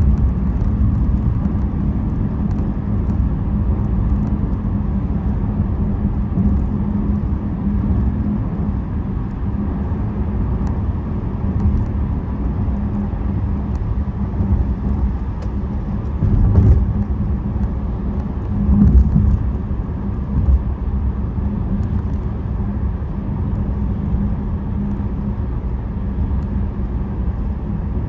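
Car driving at freeway speed, heard from inside the cabin: steady tyre and engine rumble with a low, steady hum. Two short louder rumbles come a little past the middle.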